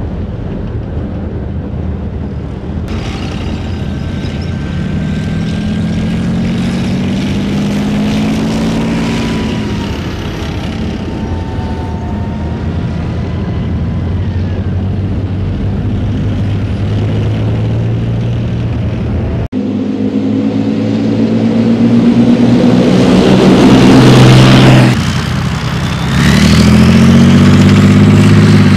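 Leopard 2A6 main battle tanks' V12 diesel engines running as the tanks drive on a dirt track, the pitch rising and falling as they rev. The sound gets loudest about three-quarters of the way through, with a brief break shortly before.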